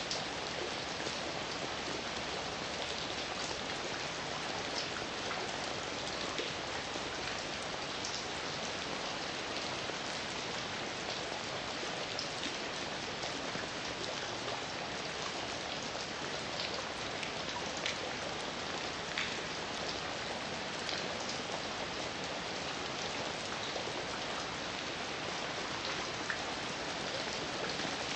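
Heavy rain falling steadily: an even hiss of rain with scattered individual drops ticking out above it.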